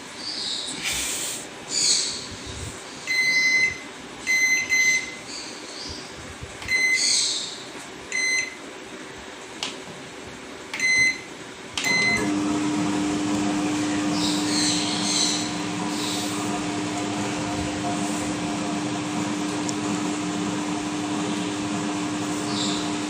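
Nikai microwave oven keypad beeping as its newly replaced front-panel buttons are pressed, about eight short beeps with a few scratchy noises between them. About twelve seconds in the oven starts cooking with a steady hum and fan noise, showing the repaired panel works.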